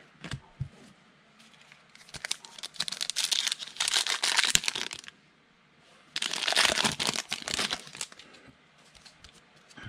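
A foil trading card pack being torn open and its wrapper crinkled in the hands. There are two spells of crinkling, about two to five seconds in and again about six to eight seconds in, with small clicks between.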